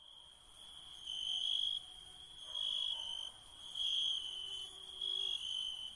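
Crickets trilling at night: one steady high trill that swells louder and eases off in pulses a little over a second apart.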